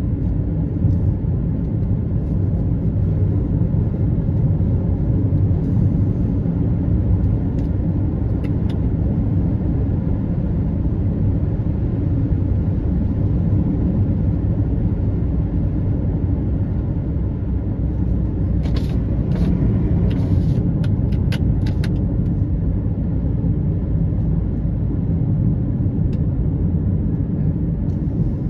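Steady low rumble of a car driving on a paved road, the engine and tyre noise heard from inside the cabin. A few faint clicks come about two-thirds of the way through.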